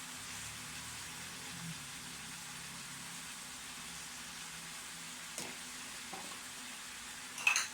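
Minced chicken kefta frying in oil in a pan, a steady sizzle. A couple of sharp clicks sound near the end.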